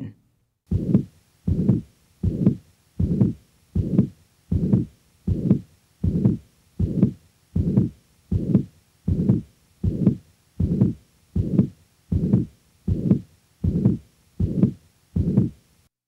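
Auscultated heart sounds from a patient with mitral regurgitation: a pansystolic (holosystolic) murmur of rather high pitch filling each systole from the first to the second heart sound, repeating evenly about 1.3 times a second. The beats start just under a second in.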